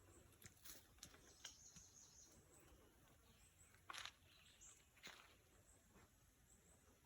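Faint bird chirps, a few short high calls, with several faint sharp clicks, the loudest about four and five seconds in.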